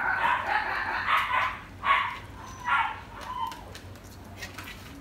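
Newborn puppies, eyes still closed, squealing and crying: one long cry at first, then three shorter cries about a second apart, each fainter than the last.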